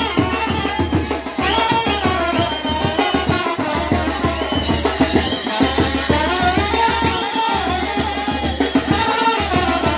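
Wedding brass band playing a Pahari folk dance tune: horns carry a sliding melody over fast, busy drumming.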